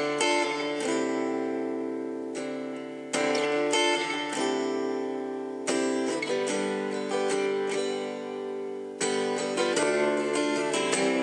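Music: an acoustic guitar strumming chords, a fresh strum every two to three seconds with each chord left to ring, with no singing.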